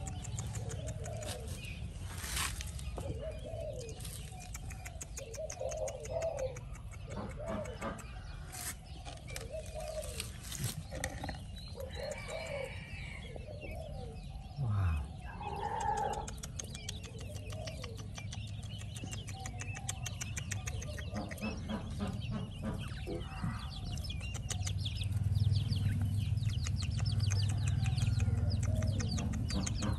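Birds calling: short low cooing calls repeated every second or two over faint high chirping. A low rumble swells near the end.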